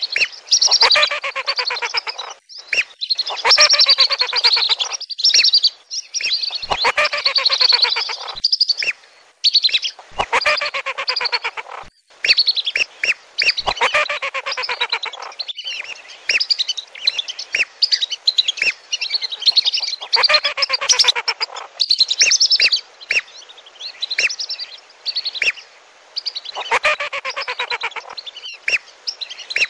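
A flock of whistling ducks calling together: many high, whistled notes overlapping in bursts with short breaks. It is a lure call for drawing in wild lesser and wandering whistling ducks.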